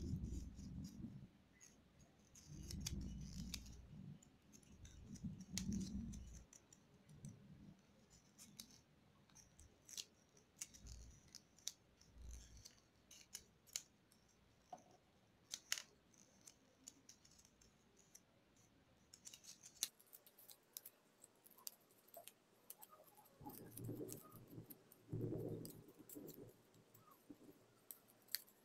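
Origami paper being folded and creased by hand: faint crinkling and scattered crackling ticks of the paper. Low, dull bumps of the hands and paper against the table or microphone come in the first few seconds and again near the end.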